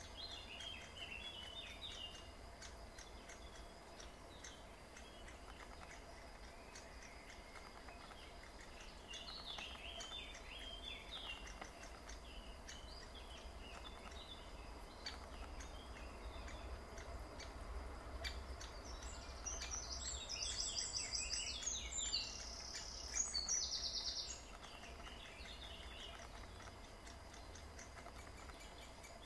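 Great spotted woodpecker nestlings begging from the nest hole: short bursts of rapid, high chattering calls, rising to a louder, denser stretch of fast calls for a few seconds about two-thirds of the way through.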